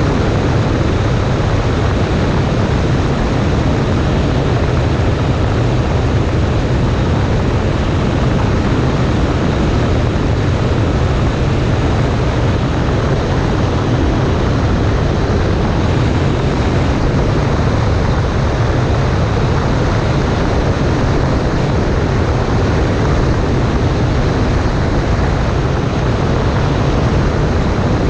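Cessna 140A light airplane's piston engine and propeller running steadily, mixed with rushing airflow noise, unchanging throughout.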